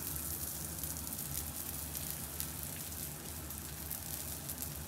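Butter sizzling and crackling steadily in a cast-iron pan as rolled chapatis with a banana filling fry in it.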